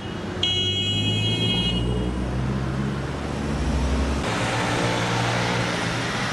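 Road traffic: vehicle engines running with a low hum and a vehicle passing, growing louder about four seconds in. A shrill high-pitched tone sounds for about a second and a half near the start.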